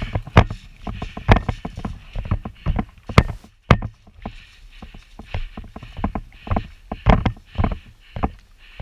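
Running footsteps on the ground with gear jostling: uneven thuds roughly twice a second over a rustling haze.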